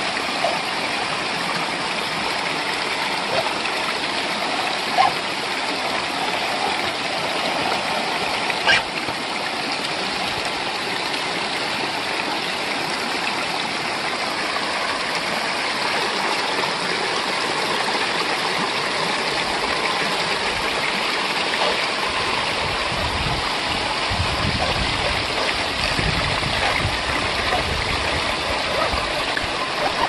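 Small waterfall cascading over granite boulders: a steady rush of water. A brief knock comes twice in the first ten seconds, and a low rumble joins in after about twenty seconds.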